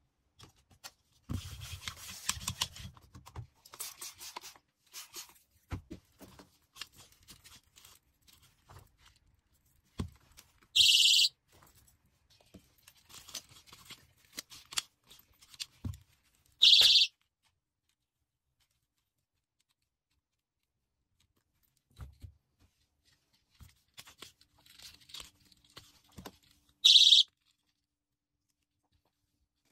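A doll-charm keychain personal safety alarm shrieking in three short, shrill blasts, each cut off after about half a second. Between the blasts come rustling and crinkling of packaging and light handling clicks.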